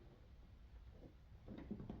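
Near silence with a few faint clicks and knocks in the second half: hands working at a coolant hose connection.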